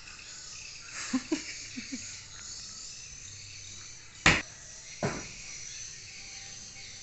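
Two sharp clicks about a second apart, the igniter of a portable gas stove being turned to light it, over a steady faint high hiss of insects.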